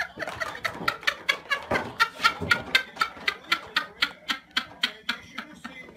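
A fast, even run of short, sharp sounds, about four a second.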